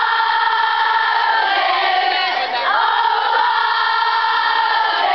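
A large crowd of college students singing together, loud, with long held notes.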